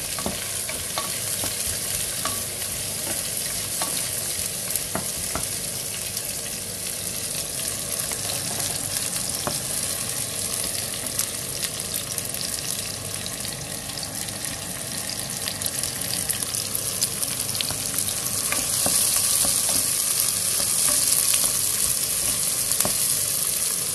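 Sliced onions sizzling in hot oil in a nonstick pot as a wooden spoon stirs them, with scattered taps and scrapes of the spoon against the pan. The sizzle grows louder about three-quarters of the way through.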